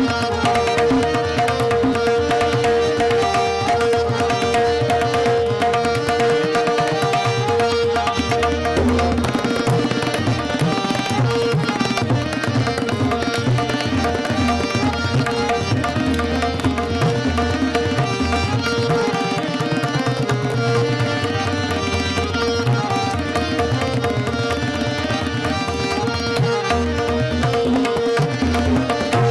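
Hindustani classical music in Raga Rageshree: tabla playing a dense run of strokes with deep bass-drum (bayan) strokes, over a held harmonium note and the tanpura drone. The held note is strongest for the first nine seconds or so and comes back near the end.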